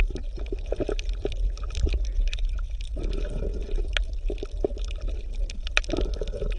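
Underwater bubbling and gurgling water, with many irregular small clicks over a steady low rumble.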